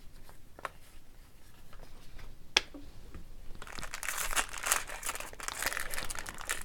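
A few light clicks and one sharp tap as trading cards are handled, then, about three and a half seconds in, the foil wrapper of a 2017-18 Upper Deck SP Authentic hockey card pack crinkling as it is torn open.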